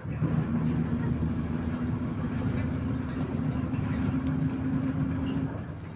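MAZ-103 city bus running, heard from on board: a steady low engine hum that swells just after the start and holds at an even pitch for about five seconds, then eases near the end.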